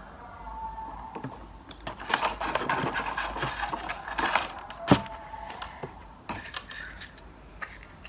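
Rustling and handling noise of a chiffon headscarf being wrapped and adjusted close to the microphone, with scattered small clicks and one sharp knock about five seconds in.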